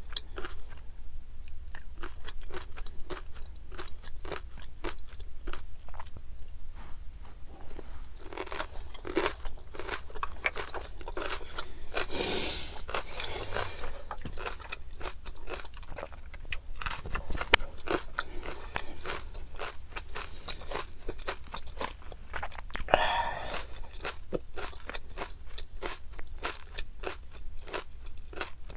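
Close-miked chewing of flying fish roe (tobiko), a dense run of small crackling pops as the eggs burst between the teeth. Twice, about twelve and twenty-three seconds in, a longer, louder noisy burst cuts through the clicks.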